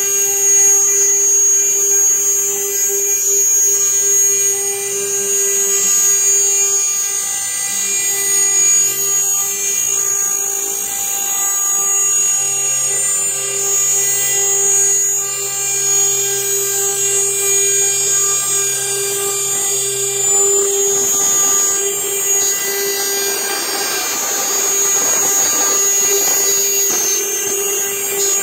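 Probotix CNC router spindle running steadily at high speed with a high-pitched whine as its water-cooled bit trims a carbon fiber part. A rougher cutting noise builds up about three quarters of the way through.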